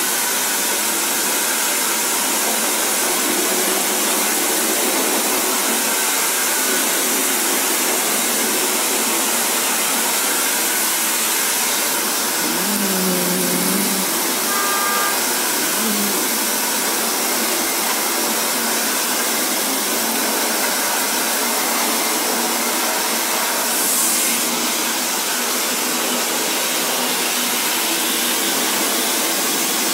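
Handheld electric hair dryer running steadily, blowing air onto a wet silk-screen frame to dry the washed-out stencil.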